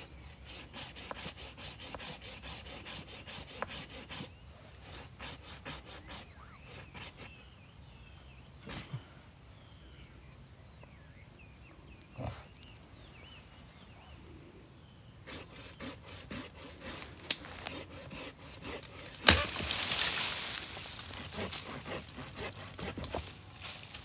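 Hand tool sawing and scraping into the woody base of a shrub in quick repeated strokes, pausing through the middle. About 19 seconds in comes a sharp knock, then a burst of rustling brush.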